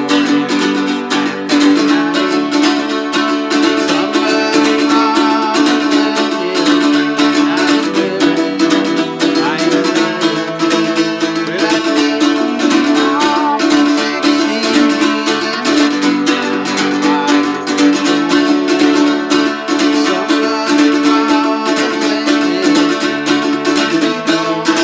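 Music played on plucked string instruments, with a quick, even picking rhythm throughout.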